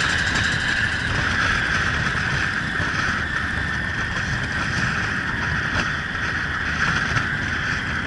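Motorcycle riding at steady road speed: a low engine rumble under a steady rush of wind on the bike-mounted camera's microphone.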